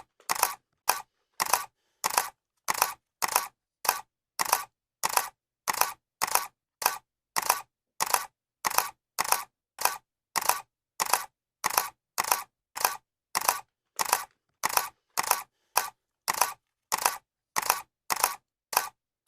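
Camera shutter clicking over and over at an even pace, about one click every 0.6 seconds. Each click is a quick double snap, with silence in between.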